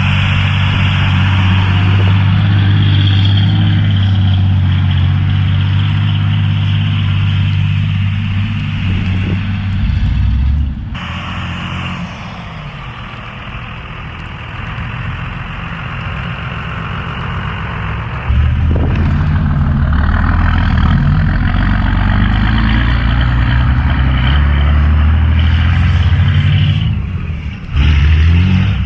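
5.9 12-valve Cummins turbo diesel truck engine running while driving, with a steady haze of road and wind noise. About eleven seconds in the engine drops back and goes quieter, then it comes back up loudly at about eighteen seconds, rising in pitch as it pulls again.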